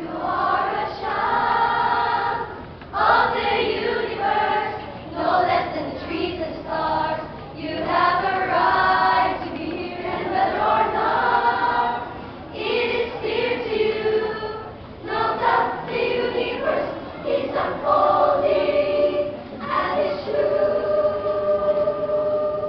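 A school speech choir of boys and girls singing together in unison, in phrases broken by short pauses, ending on a long held note near the end.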